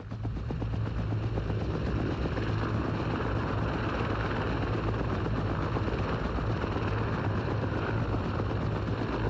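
Boeing CH-47A Chinook tandem-rotor helicopter running on the ground: a steady, unchanging rotor and engine noise with a heavy low hum.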